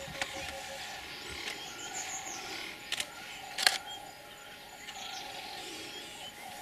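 Two sharp camera shutter clicks, the second and louder about a second after the first, against a steady outdoor background with faint high bird chirps.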